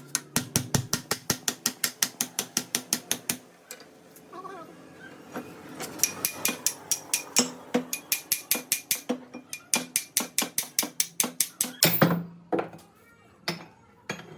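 Fast, even ratcheting clicks from a hand-turned tool mechanism, about six a second, in two runs with a short pause between. A louder knock comes near the end.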